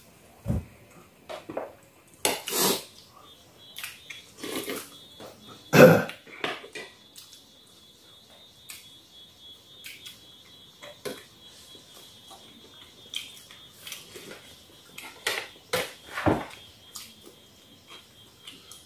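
Metal spoons clinking and scraping on plates and bowls as several people eat: scattered clicks and knocks, the loudest about six seconds in, over a faint steady high whine.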